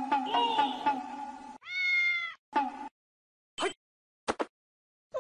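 A steady pitched sound with a quick pulsing beat fades out over the first second and a half, then a cat meows once, a single call that rises and falls. A few short sounds and a sharp click follow.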